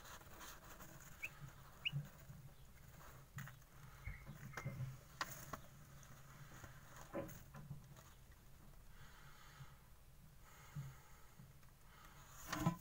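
A chick giving a few short, faint peeps, with scattered light taps and rustling of wood shavings as it moves about in its brooder litter.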